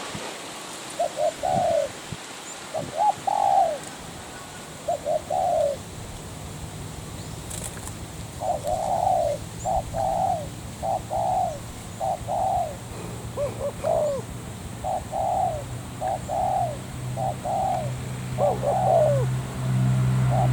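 Spotted dove cooing: a run of short coo phrases, a few scattered early on, then an almost unbroken series through the second half.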